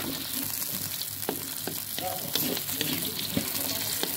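Chilies, shallots and garlic sizzling in a little boiling water and oil in a metal wok, with a steady hiss. A wooden spatula stirs and knocks against the pan in several sharp clicks.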